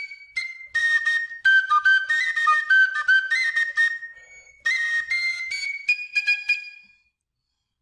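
Cane (carrizo) flute playing a melody of short, separately tongued notes with audible breath, the phrase ending about seven seconds in.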